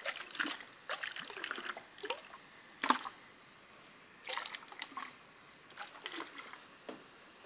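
Bath water splashing and dripping in short spells with quiet gaps between them, the sharpest splash about three seconds in.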